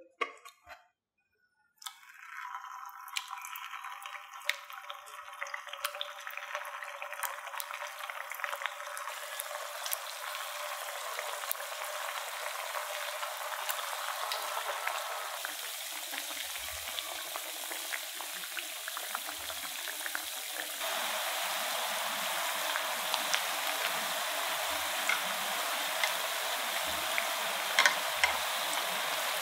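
Mashed potato patties deep-frying in hot oil: a dense crackling sizzle that starts about two seconds in and grows fuller and a little louder. A few light knocks come before it, and near the end a few sharp clicks as chopsticks turn the patties in the pan.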